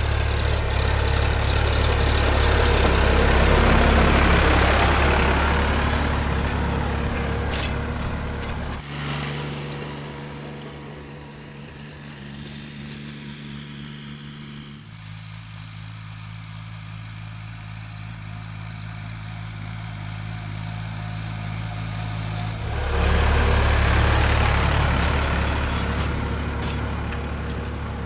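Sonalika 42 HP tractor's diesel engine running steadily under load while pulling a nine-tine cultivator through dry soil. It is much quieter from about 9 seconds in, then loud again from about 23 seconds as the tractor is close once more.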